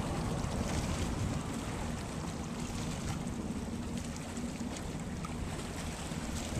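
Steady wind rumbling on the microphone over water lapping and splashing on open water, with no single event standing out.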